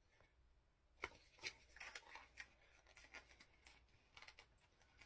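Faint, quick crinkling and ticking of a sticker sheet being handled as decals are peeled off, starting about a second in.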